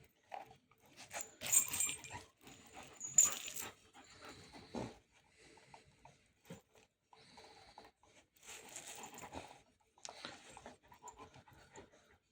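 A dog panting in irregular bursts of breath, with two louder noisy bursts about a second and a half and three seconds in.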